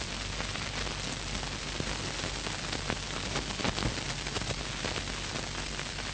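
Surface noise of an old film soundtrack: a steady hiss scattered with crackles and clicks over a low hum.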